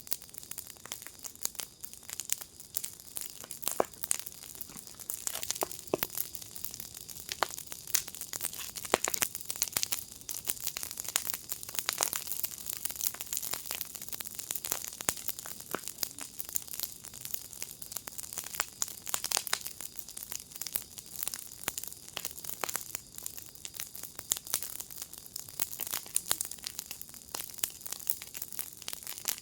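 Wood fire in a garden firepit crackling, with dense, irregular sharp pops and snaps over a steady hiss.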